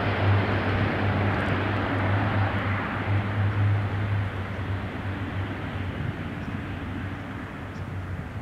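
Dash 8 turboprop at takeoff power on its takeoff roll: a steady low propeller drone over the rush of the engines, fading as the aircraft speeds away down the runway.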